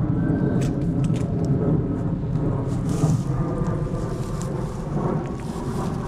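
Dry grass and brush rustling and crackling with scattered sharp snaps as someone pushes through it on foot, over a steady low rumble.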